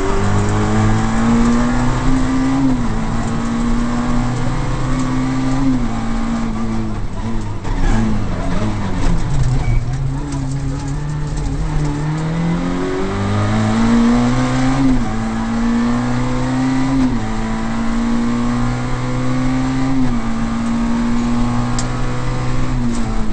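Peugeot 106 Group A rally car's engine heard from inside the cabin at full throttle, its note climbing and then dropping with each quick upshift. About a third of the way in the note falls away as the car slows for a bend. It then picks up again and climbs through several more gear changes.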